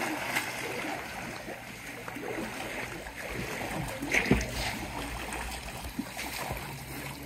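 Pool water splashing and sloshing as swimmers stroke and move through it, with a louder splash about four seconds in.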